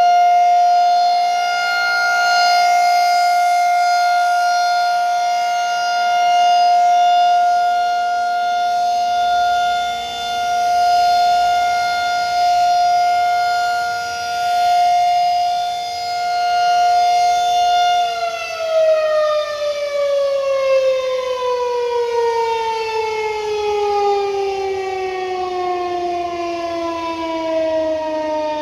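Federal Signal 2001-SRN rotating outdoor warning siren sounding a steady tone during a test, swelling and fading in loudness every few seconds as the horn turns. About two-thirds of the way through it shuts off and the pitch falls slowly as the rotor winds down.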